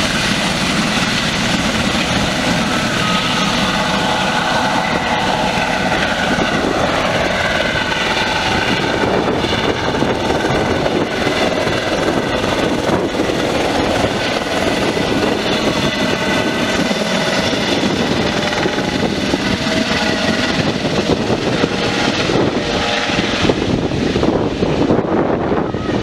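Eurocopter EC130 B4 helicopter taking off and flying overhead: its single turboshaft engine and Fenestron tail rotor whine over the rotor noise, loud and steady. The highest part of the whine thins out near the end as it flies away.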